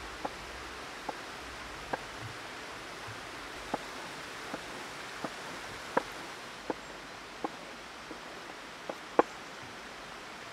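Large chef's knife chopping vegetables on a wooden cutting board: about a dozen sharp, irregular knocks of blade on wood, the loudest near the end. Under them runs the steady hiss of a forest stream.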